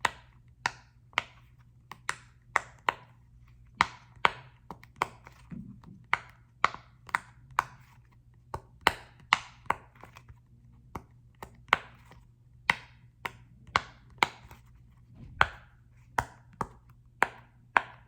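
Sharp taps and clicks made by handling and tapping a small football-shaped object, coming irregularly at roughly two a second.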